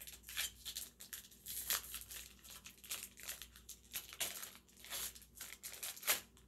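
Wrapper of a 2022 Panini Contenders football card pack crinkling and tearing as it is opened by hand, in a run of short, irregular crackles.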